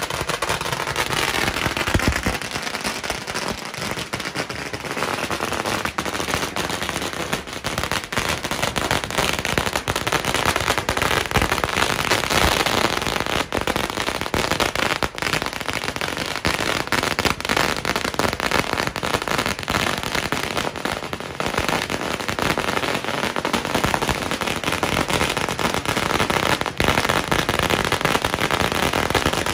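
A long string of firecrackers going off in a dense, continuous rapid crackle of bangs that keeps up without a break.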